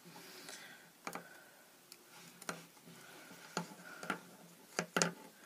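A handful of small, sharp clicks and taps as rubber-banded wooden pencils are handled and knocked together, with a faint rustle of hands near the start.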